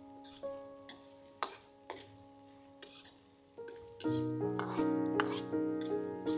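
A utensil scraping and knocking against a cooking pan as food is stirred, in a handful of short sharp strokes, over background piano music that gets louder about four seconds in.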